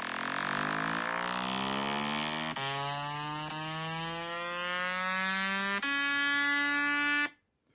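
A buzzy test tone from a speaker-cleaning app played through an iPhone's own speaker to shake dust out of the grille. Its pitch rises slowly, changes abruptly twice, about two and a half and six seconds in, and the tone cuts off just over seven seconds in.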